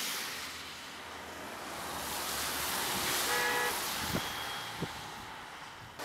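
Road traffic passing on a wet road, the hiss of tyres swelling and fading. A car horn gives a short toot about three seconds in, and two short clicks follow within the next second or so.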